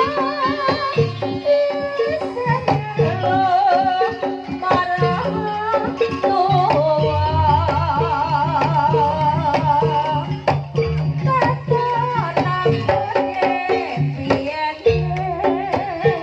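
Live jaranan music: a Javanese traditional ensemble of drums and gongs beating out a steady repeating figure under a wavering, ornamented melody line.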